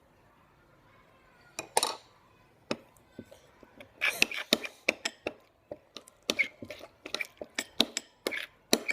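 Utensil clinking and knocking against a bowl while slime is stirred and colour is mixed in: irregular sharp clicks, starting about a second and a half in and coming thick and fast from the middle on.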